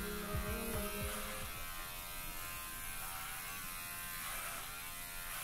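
Electric hair clippers buzzing steadily as they cut through long hair on the scalp.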